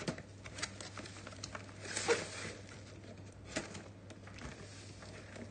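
Cardboard box flaps and packing inserts being handled and pulled open: scattered taps and rustles, with a louder scraping rustle about two seconds in and a sharp tap near the middle.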